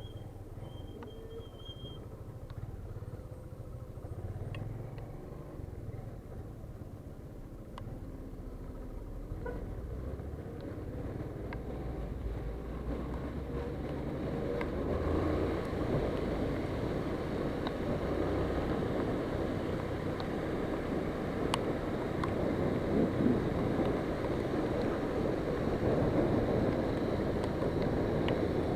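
Vehicle on the move: a steady low rumble with road and wind noise that grows louder through the second half.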